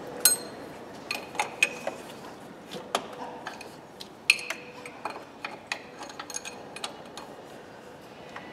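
Spanner and metal fittings clinking while a power steering hose fitting is tightened in a car's engine bay. Scattered sharp metallic clinks with a brief ring, the loudest near the start and about four seconds in.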